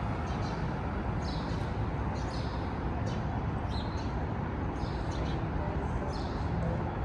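City street ambience: a steady low hum of traffic, with a bird's short high chirps repeating every second or so, several of them in quick pairs.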